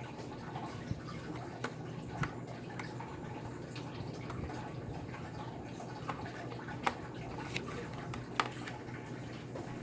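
Scattered light clicks and taps, about seven spread over several seconds, from small parts of an iBook G4 laptop being handled during reassembly, over a steady low hum.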